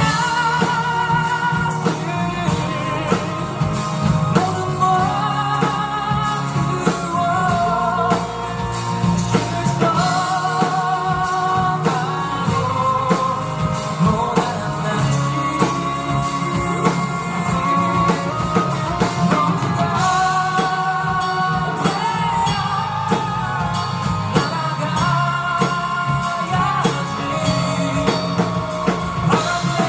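Live band music: a sustained lead melody with vibrato over guitar, bass and a steady drum beat.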